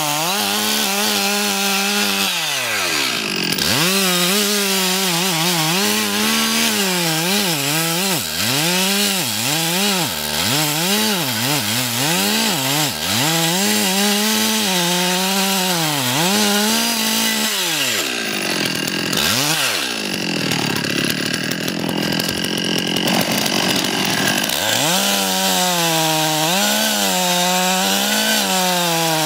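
Two-stroke chainsaw cutting into a large tree trunk, its high engine note dipping and rising again and again as the chain bogs in the wood and recovers. For several seconds past the middle the engine note drops away, leaving a rougher sawing noise, then the steady high note returns.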